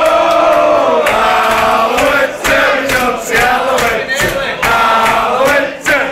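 A group of men chanting a song together in long held notes, led by one man singing into a microphone.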